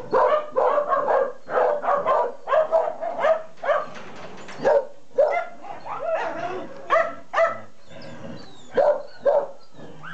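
Several dogs barking and yipping, the calls tightly packed and overlapping for the first few seconds, then thinning out to single barks every half second or so.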